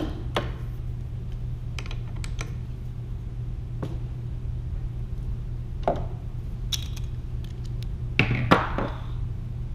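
Scattered metallic clicks and knocks of a ratchet wrench being worked on the connecting rod cap bolts to loosen them, with a louder pair of knocks near the end. A steady low hum runs underneath.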